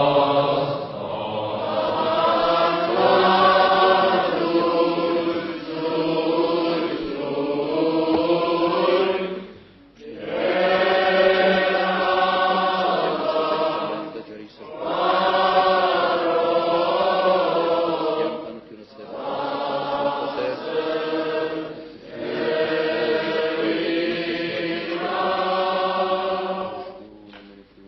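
School choir singing a song in Armenian, in long sung phrases separated by brief pauses.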